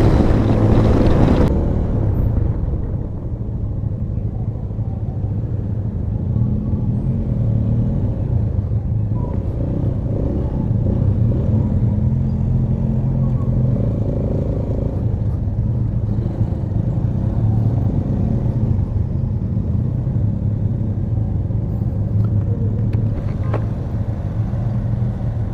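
Motorcycle engine running at low speed through a slow ride, a steady low drone heard from the rider's seat. For about the first second and a half there is loud wind rush from highway speed, which cuts off suddenly.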